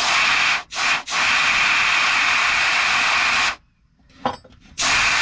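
Compressed air from an air-compressor hose blowing through transmission cooler lines, hissing in blasts: two short ones, a long blast of about two and a half seconds, a pause of about a second, then another blast near the end. The air is clearing leftover cleaner out of the lines and drying them.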